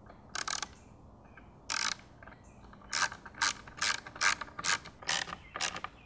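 Small hand ratchet driving T10 Torx screws, its pawl clicking in short bursts: a couple of strokes in the first two seconds, then a regular run of about two to three strokes a second as the screws are snugged up, not overtightened.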